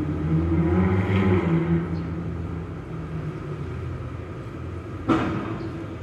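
Heavy diesel construction machinery running, its engine note swelling about a second in and then easing back to a steady drone. About five seconds in comes a sudden sharp clank that rings briefly.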